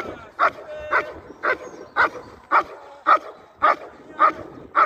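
German Shepherd barking at the protection helper in a steady run of sharp barks, about two a second, with no pauses: the demand barking of IGP bite work.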